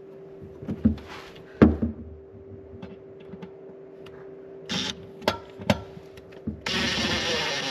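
Knocks and clunks of parts and tools being handled and fitted into place under a boat console, the loudest about a second and a half in. Near the end a loud, steady mechanical noise starts abruptly.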